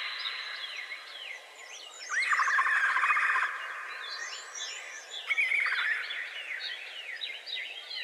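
Several wild birds singing. One bird repeats a loud song phrase, a rising note running into a rapid trill, about every three seconds, over a scatter of softer chirps from other birds.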